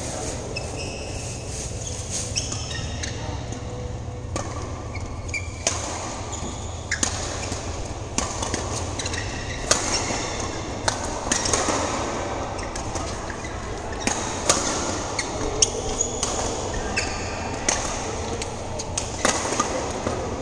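Badminton rackets hitting shuttlecocks in rallies, many sharp pops at irregular intervals, with sneakers squeaking on the court mat. A steady low hum runs underneath, and the hits echo in a large hall.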